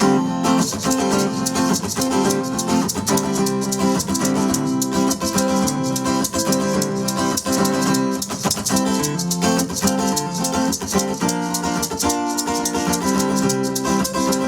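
A band plays the instrumental opening of a song: strummed guitar over a steady shaker rhythm.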